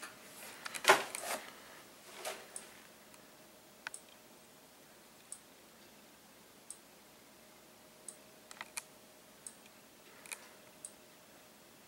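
Simplex 4903-9101 strobe flashing with no horn, giving a faint sharp tick with each flash about every second and a half, over a faint steady tone. A few louder knocks and rustles from handling the camera break in, the loudest about a second in.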